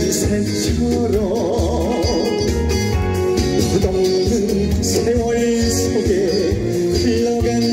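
A singer singing a wavering, vibrato-laden melody into a handheld microphone, amplified over a recorded accompaniment with a steady beat.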